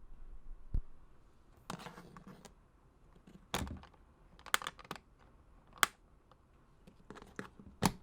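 Sparse, irregular clicks and clacks from a mechanical keyboard and its parts, about eight sharp ones spread unevenly, not a steady typing rhythm.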